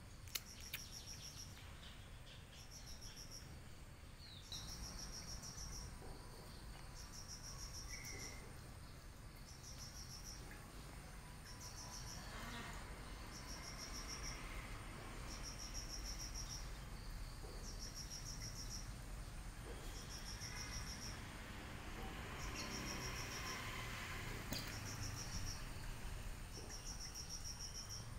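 Insect chirping in a regular rhythm: a short, rapidly pulsed high-pitched chirp about every second and a half, over a low background hum.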